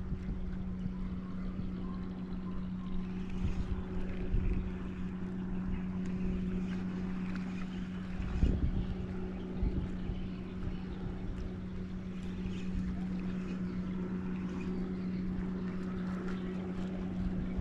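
A motorboat engine running at a steady low hum, with wind rumbling on the microphone and a brief louder gust about eight and a half seconds in.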